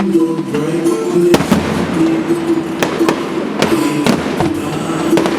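Fireworks going off in several sharp bangs about a second apart, over music with long held notes.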